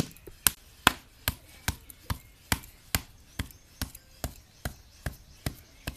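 A wooden paddle beating the wall of an unfired clay pot against a support held inside it, in a steady rhythm of sharp slaps, about two and a half a second.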